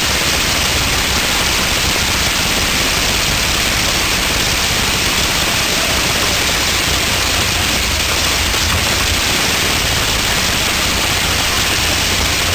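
A rebuilt 1400-cubic-inch Maybach V-12 tank engine on a test stand, running at one steady speed: a loud, even rushing noise with a low hum beneath it.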